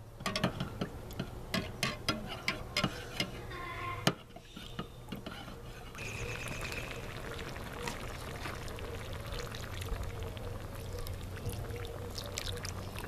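A metal spoon clinking quickly and repeatedly against a glass measuring cup as chipotle chile is stirred into water. After that, a steady hiss from the propane burner under the steel disc pan, with the chile water poured into the pan near the end.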